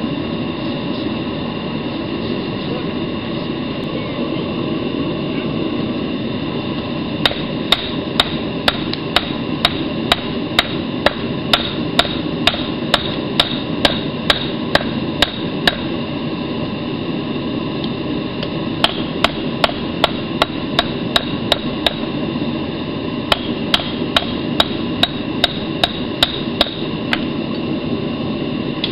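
Hand hammer striking a hot steel billet on an anvil to set a forge weld: three runs of ringing blows at about two a second, with short pauses between them. A steady rushing noise from the forge runs underneath.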